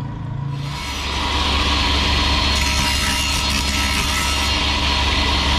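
Steady mechanical running noise, a dense hiss over a constant low hum, starting about half a second in and holding level.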